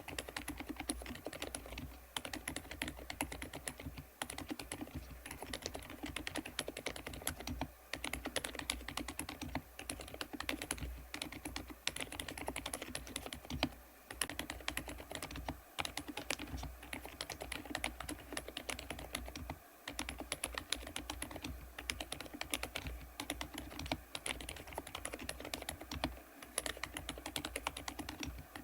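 Continuous typing on a Thinkway TAUCHE.F 101 full-size mechanical keyboard fitted with Thinkway Poached Egg low-noise linear switches on a polycarbonate plate. The key presses are fast and dense, with a few short pauses, and give a soft, muted clatter.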